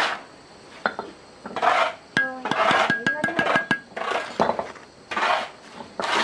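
Metal utensils scraping and clinking against pots and dishes: short scraping strokes about once a second, with a quick run of ringing clinks near the middle.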